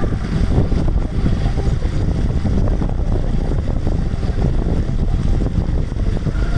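Loud, steady rumble of wind buffeting the microphone aboard a moving boat, with water noise underneath.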